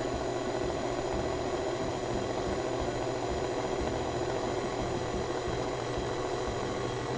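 KitchenAid Classic stand mixer running at a steady speed, a continuous motor hum, its flat beater turning through cake batter in the stainless steel bowl.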